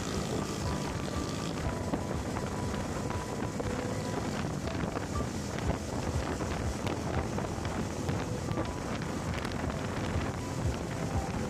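Wind buffeting the microphone of a moving motorcycle, with the ride's engine and road noise underneath.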